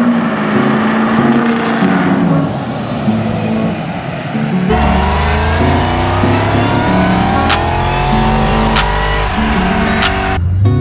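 A Dodge Charger SRT Hellcat's supercharged V8 run hard on a chassis dyno, its pitch climbing steadily for about five seconds, with a few sharp cracks, then cut off abruptly near the end. Before it, another vehicle's engine revs up and down, with music underneath.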